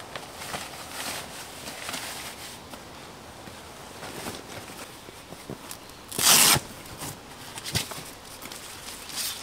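Scattered small clicks and rustles of handling, with one short loud rasp about six seconds in.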